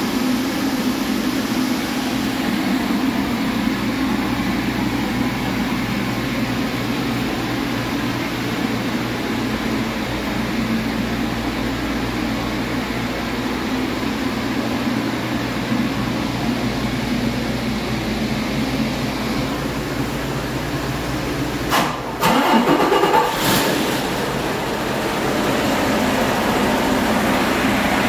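Detroit Diesel DD15 inline-six diesel engine running steadily on a test stand, a used engine that the seller says runs excellent. A brief, louder burst of noise comes about three-quarters of the way through, after which the engine runs a little louder.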